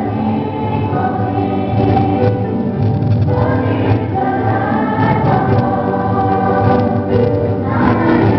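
A choir singing, many voices holding long notes that change about once a second.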